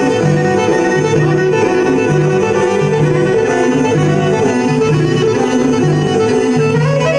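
Live Northern Epirote folk dance music: a clarinet carries the melody over accordion and a defi frame drum in a steady dance rhythm.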